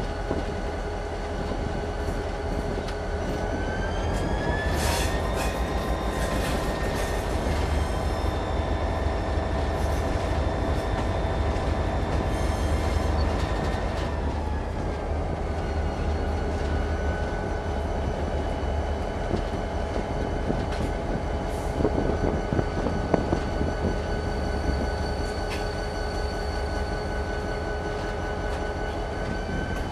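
Chicago and North Western SD40-2's 16-cylinder EMD 645 diesel running, heard from inside the cab, with the wheels rolling on the rails beneath. Its steady whine rises in pitch about four seconds in and falls back around fifteen seconds, with a few sharp clicks along the way.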